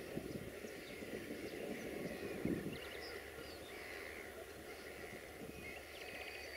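Small birds chirping and twittering, with short rapid trills, over a low rumble that fades out about three seconds in.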